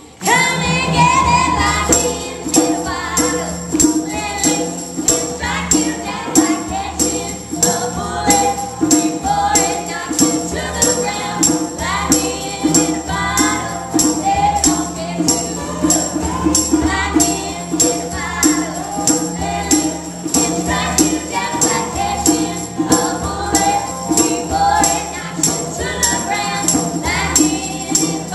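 A country song performed by a female vocal group: women singing in harmony over a band, with a steady jingling percussion beat throughout.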